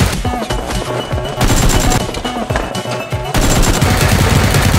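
Rapid automatic gunfire sound effects in repeated bursts, each a second or more long with short pauses between, over background music.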